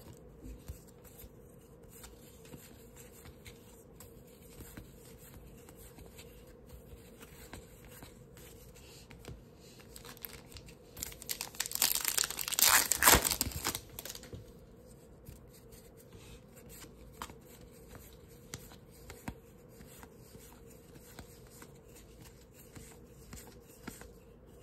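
Trading cards sliding and flicking against each other with faint clicks; about halfway through, a trading-card pack wrapper is torn open with loud crinkling that lasts about three seconds.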